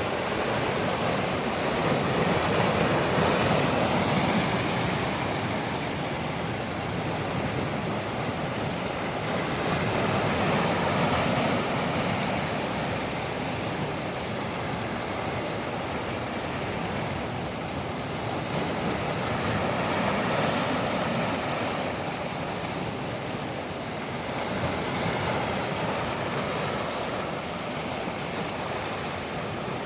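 Ocean waves breaking and washing on the shore, surging and receding every several seconds, with wind blowing.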